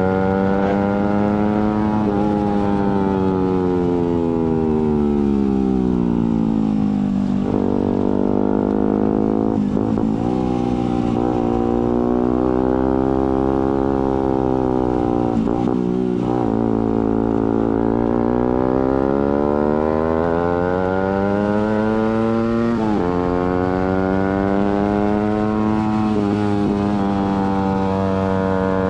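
Suzuki GSX-R150's single-cylinder engine through an aftermarket Prospeed exhaust. It settles as the bike slows, then revs up through the gears with quick clutchless upshifts that briefly cut the note, around ten and sixteen seconds in. It eases off again, climbs, drops sharply at a shift a little before the end, and then runs steadily.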